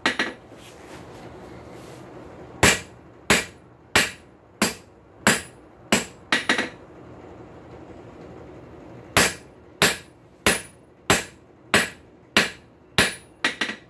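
Hand hammer striking red-hot high-carbon steel on an anvil to forge a square punch taper. The blows come evenly, about one and a half a second, in two runs separated by a pause of about two seconds. Each blow is a sharp strike with a brief ring, and a steady low noise fills the gaps.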